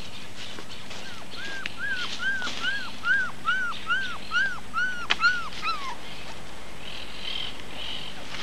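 Puppy whining: a run of about a dozen short cries, each rising and falling in pitch, coming two or three a second for about four seconds, then stopping.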